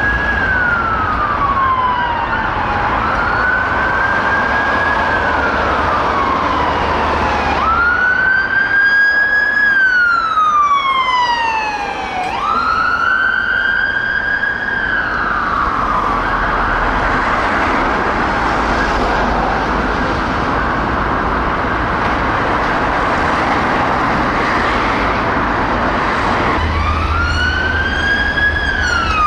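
Emergency vehicle siren on a wail: each cycle rises quickly and falls slowly over about three to four seconds, over a low rumble of engines and traffic. The wail stops for about ten seconds past the middle and starts again near the end.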